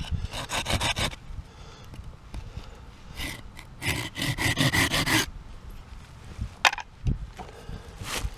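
Folding hand saw cutting across a small chestnut-wood spoon blank: a short run of quick strokes, a pause, then a longer run of strokes from about three to five seconds in. A sharp click and a knock follow near the end. These are the cuts made before splitting out the spoon's handle.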